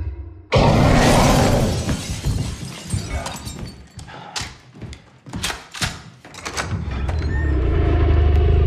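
A sudden loud shattering crash about half a second in, followed by scattered clattering and knocks, and a low rumble that swells near the end.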